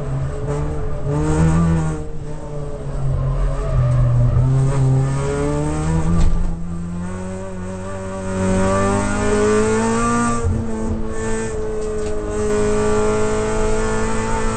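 Toyota Corolla AE92 race car's four-cylinder engine heard from inside the cabin at racing speed. The revs climb and fall repeatedly, with short dips at gear changes and lifts, then hold nearly steady over the last few seconds.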